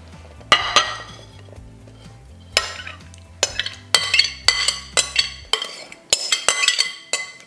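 Glass mixing bowl and utensil clinking and scraping as marinated shrimp are emptied into a ceramic baking dish. There are a few sharp ringing clinks at first, then a quick run of them from about three and a half seconds in.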